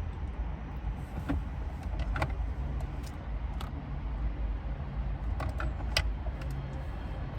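Car interior noise: a steady low rumble, with scattered small clicks and rattles.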